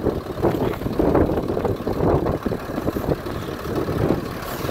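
A vehicle engine idling, with uneven scuffing and rustling noises over it.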